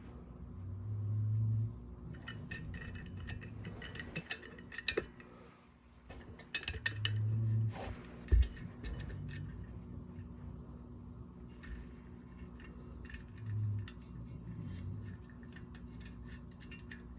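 Small steel bolts, nuts and washers clinking and rattling against metal as they are handled and fitted through a sprocket and freewheel, in clusters of quick clicks, with one sharp knock a little past the middle.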